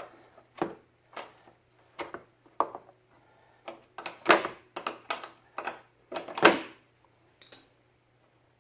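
An 11 mm wrench clinking against the top brake-hose fitting as it is loosened: a dozen or so irregular metal knocks, the loudest about four and a half and six and a half seconds in, over a faint steady hum.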